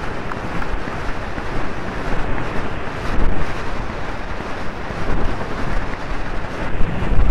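Wind buffeting a helmet-mounted camera's microphone at a gallop: a loud, steady rush that swells about three seconds in and again near the end.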